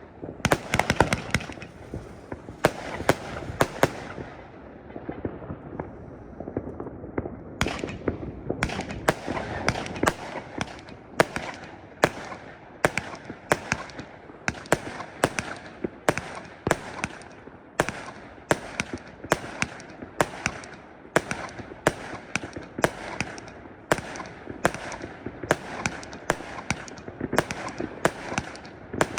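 Fireworks going off: a dense, irregular string of sharp bangs and cracks, several a second, with a short lull about four seconds in before the banging picks up again.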